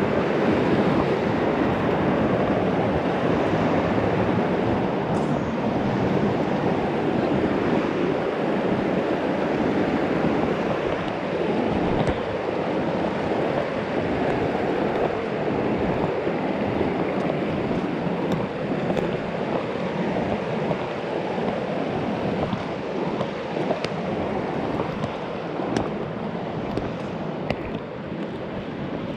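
Steady rush of a mountain creek's flowing water, easing off a little toward the end.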